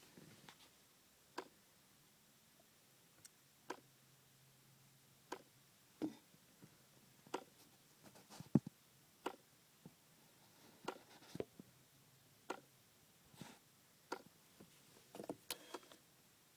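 Failing HVAC flap servo motor (part 8E1820511C) behind the glove box of a B6 Audi A4, clicking over and over at uneven intervals, about once a second, with the car switched off. The clicking is the sign of this failed actuator.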